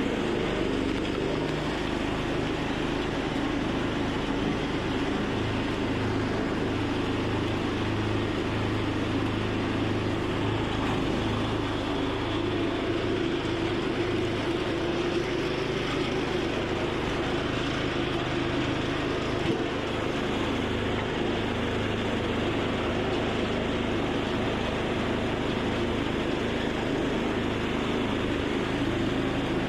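An engine running steadily at an even speed, with a constant low drone.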